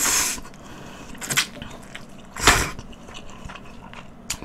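A person slurping spicy noodle soup off a spoon. One long slurp ends just after the start, then two shorter eating noises come about a second apart, with light clicks and chewing.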